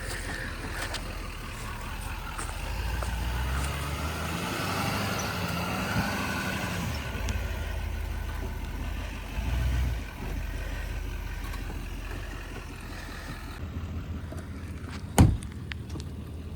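Truck engine running under load, its pitch rising and falling for a few seconds as it fights for traction in deep mud while towing a trailer. A single sharp knock comes near the end.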